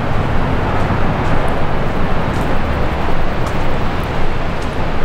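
Steady rumbling noise of breeze buffeting the microphone and surf against the sea cliffs, heaviest in the low range, with slight swells in level.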